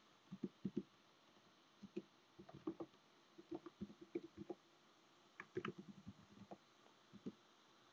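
Faint computer keyboard typing: irregular soft key clicks in short clusters, with near silence between them.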